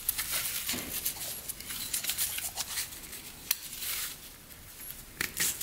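Small clicks and light metallic scrapes of a piston ring being handled on the Polaris Sportsman 500's piston.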